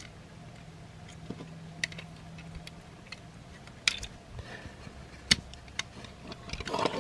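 Plastic parts of a transforming robot figure clicking and knocking as they are rotated and folded into place: a handful of sharp clicks, the loudest about four and five seconds in.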